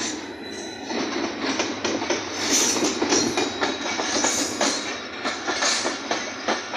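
A diesel-hauled passenger train running past close by along a station platform. The wheels click irregularly over the rail joints from about a second in, over a steady rumble, as the locomotive and then the coaches go by.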